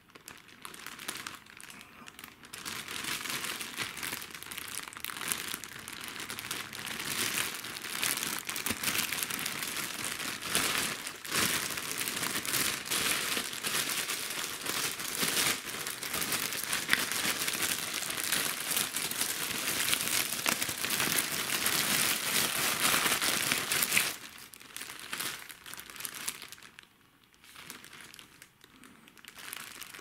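Clear plastic bag crinkling and rustling continuously as the washing machine's grey inlet hoses are handled and pulled out of it. After about 24 seconds it dies down to scattered, quieter crinkles.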